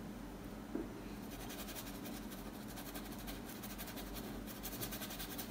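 A paintbrush scrubbing paint onto canvas in quick repeated strokes, heard as a faint, rapid scratching that starts about a second in.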